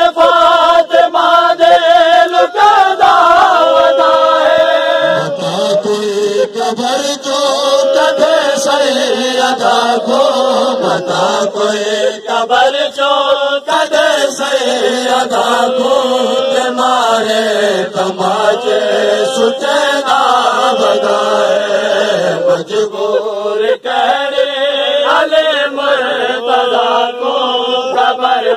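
A noha, a Shia lament, chanted loud by a male voice in long gliding lines without instruments.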